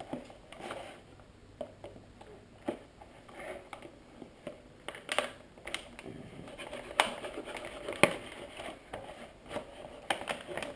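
Scattered sharp clicks and light metallic clatter of a new, still stiff Leatherman Surge multi-tool being handled.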